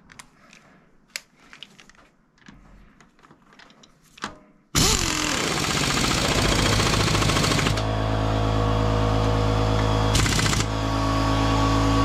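Faint tool clicks, then about five seconds in a power impact wrench starts hammering loudly with a fast rattle, tightening the Royal Enfield Himalayan's greased swingarm pivot axle nut. After a few seconds it gives way to a steady machine hum with several fixed tones, broken by another short rattle.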